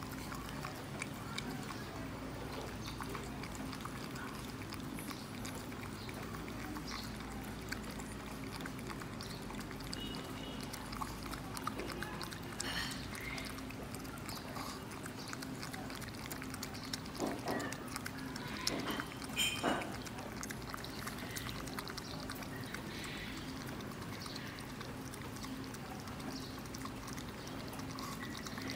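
A pug lapping milk from a small stainless-steel bowl, with quick wet licks and slurps. A few louder clicks and slurps come about two-thirds of the way through.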